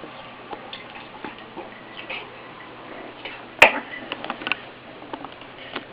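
Scattered faint clicks and taps. About three and a half seconds in comes one sharp click, then a quick run of small clicks: a drink being handled and gulped down.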